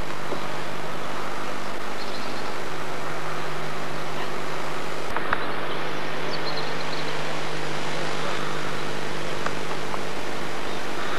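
Steady rushing of river water, running evenly without a break, under a faint steady electrical hum.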